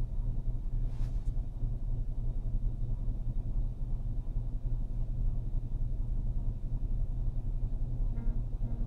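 Steady low rumble inside a Dodge Caravan minivan's cabin while it sits idling, with a faint tick about a second in.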